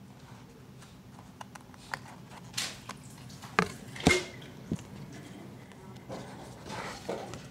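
Handling noise from a phone being moved over a wooden table and a picture book's page being turned: a scattered series of knocks and clicks with some paper-like rustling, the loudest knocks a little past the middle.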